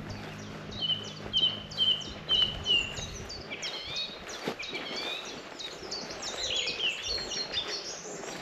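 Songbirds singing: one bird repeats a short, bright note about twice a second, five times, then several voices overlap in varied twittering.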